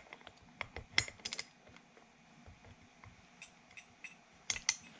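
Socket wrench clicking against a turbo's left-hand-thread compressor wheel nut as it is turned, with metallic clinks. The clicks are scattered in small clusters, about a second in and again near the end.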